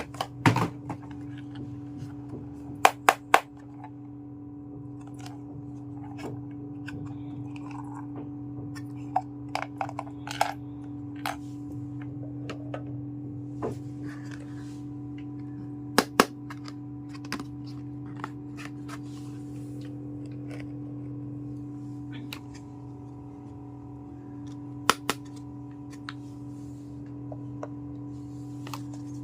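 Small pieces of a miniature toy kitchen set being handled, giving sharp irregular clicks and taps, a few much louder than the rest, over a steady low hum.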